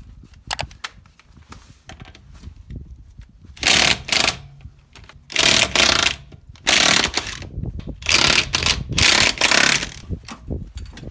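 Impact wrench hammering in about six short bursts, each under a second long, starting about three and a half seconds in.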